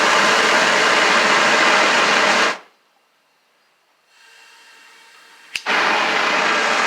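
Homemade propane venturi forge burner, a 1-inch by 12-inch tube with a small welding-tip orifice, burning with a loud steady hiss of flame and air. The sound cuts off sharply about two and a half seconds in. After a sharp click near the end, it starts again just as loud.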